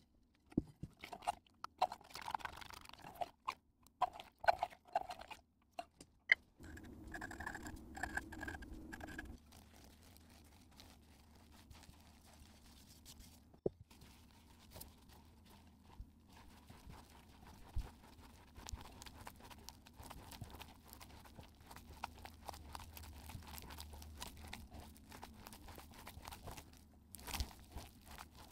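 A gloved hand mixing rolled oats and flour into wet cookie dough in a ceramic bowl: a long, dense, crunchy squishing and crackling. It is preceded by a run of sharp taps and clinks, like a spoon against the bowl.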